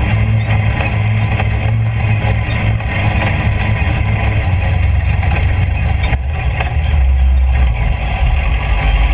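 Suzuki GSX-R750 inline-four motorcycle engine in a dune golf cart running under way, then easing off: its pitch drops about halfway through and again near the end, over a steady rushing noise.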